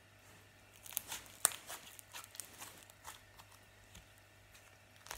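Yellow butter slime being stretched and pulled by hand, giving soft sticky crackles and clicks. These start about a second in, with one sharper click soon after.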